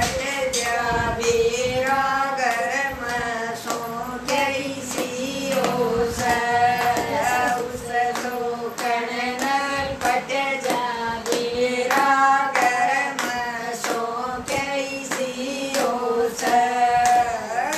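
Women singing a Haryanvi folk song together, keeping time with steady hand claps throughout.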